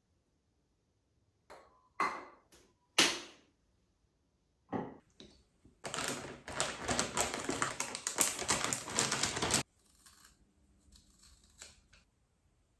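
A few separate sharp clicks or knocks, then about four seconds of rapid, dense clicking and rattling that stops abruptly.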